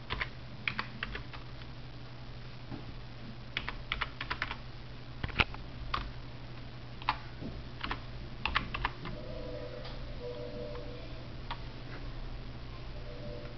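Computer keyboard being typed on in short bursts of a few keystrokes with pauses between, including one sharper single key press about five seconds in, over a steady low hum.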